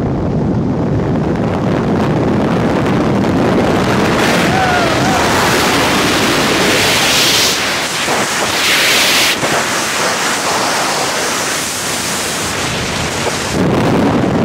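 Wind noise rushing over the camera microphone during a skydiver's freefall: a loud, steady roar of air, with two brief hissing surges about halfway through.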